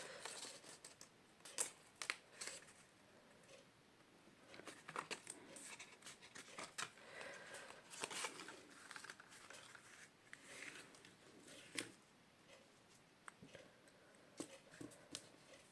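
Faint snipping, small clicks and rustling of paper or cardstock being cut out and handled.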